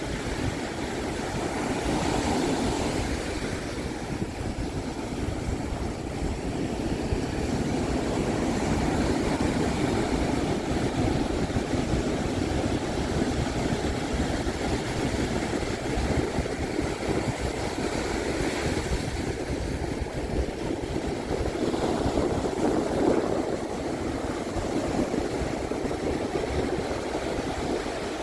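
Pacific Ocean surf breaking and washing up the beach, a continuous rush that swells and eases every several seconds, with wind rumbling over it.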